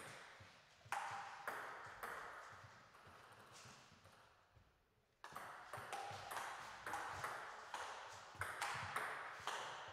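Table tennis ball knocking on bats and table: a few knocks in the first two seconds, a pause, then a rally from about five seconds in with two to three knocks a second, each echoing briefly in the hall.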